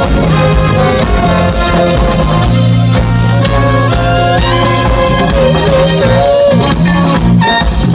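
Live band playing, with saxophone and trumpet over a drum kit and congas, loud and continuous.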